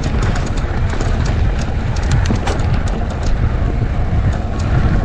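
Shimano EP8 mid-drive electric mountain bike climbing a rough, rocky trail: a steady low rumble with frequent sharp clicks and rattles from the tyres and bike over the rocks, thickest in the middle.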